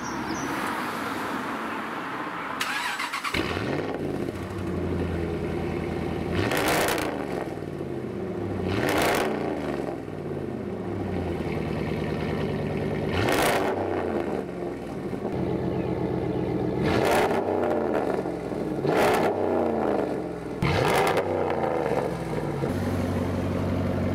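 Dodge Ram 1500's 5.7-litre HEMI V8 heard at the tailpipes through a straight-through muffler-delete exhaust. It starts up about three seconds in, then is blipped six times, dropping back each time to a burbling idle.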